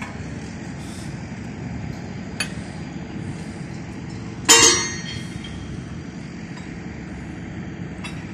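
Steady low hum of running site machinery, with a light metal clink a little over two seconds in and a louder ringing clank of steel striking steel about halfway through, from hand work on the steel flange of a microtunnelling machine.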